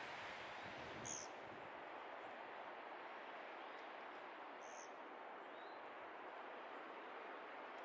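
Faint steady outdoor hiss of wind, with two short high-pitched bird calls, about a second in and near five seconds, and a faint rising chirp soon after.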